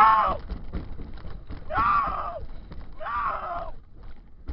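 A person's voice letting out three drawn-out exclamations, each rising and falling in pitch, over a faint low rumble.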